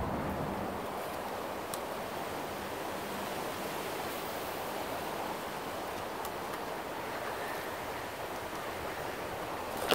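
Steady rushing wind on the microphone, with a couple of faint ticks and a short knock near the end.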